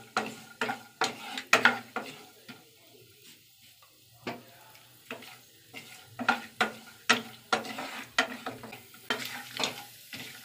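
Spatula stirring chopped almonds and cashews in ghee in a non-stick kadai, scraping and knocking against the pan about twice a second, over a faint sizzle as the nuts fry lightly. The stirring pauses for about two seconds partway through.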